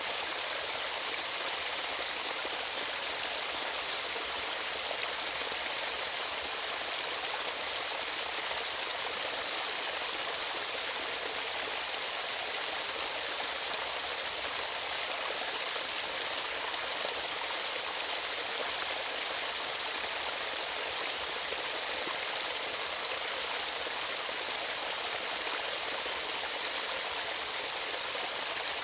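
Running water of a stream, flowing steadily with an even rushing sound.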